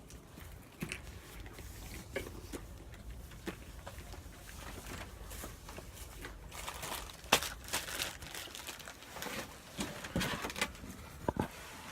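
Rustling and light knocks of things being handled and picked up, with scattered short clicks that grow busier in the second half.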